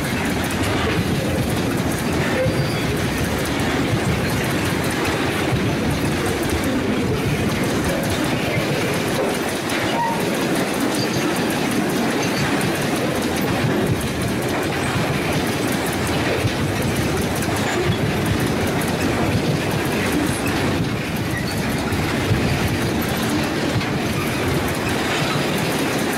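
Long freight train of tank wagons rolling past: a steady rumble of steel wheels on rail with the clickety-clack of wheels running over the rail joints.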